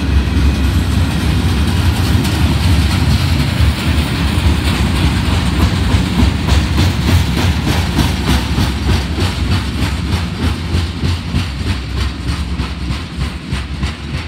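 Freight train of flatcars loaded with steel coils rolling past close by: a steady heavy rumble of wheels on rail, with a rapid, regular clickety-clack of wheels over rail joints growing plain about halfway through. It fades slightly near the end as the last cars pass.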